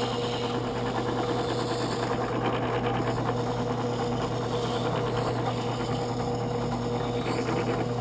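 Drill press running steadily with a sandpaper drum bit, grinding down the rough edge of a turkey feather held in a grinding jig; a constant motor hum.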